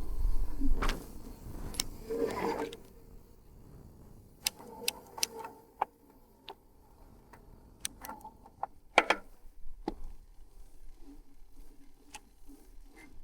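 Scattered sharp mechanical clicks and taps at irregular spacing, with a short spell of rustling handling noise at the start. A louder knock comes about nine seconds in.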